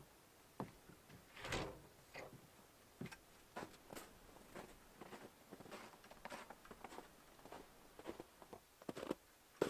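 A wooden door knocking shut, then footsteps crunching through snow at a steady walking pace, about two steps a second.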